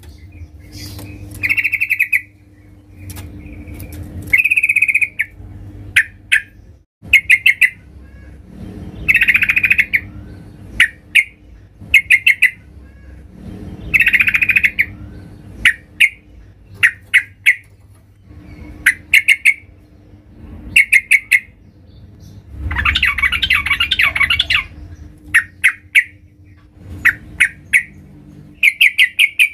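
Female yellow-vented bulbul (trucukan) calling: short bubbly notes, many in quick runs of three or four, with a longer, harsher call about 23 seconds in. These are the female's calls used to draw males into singing.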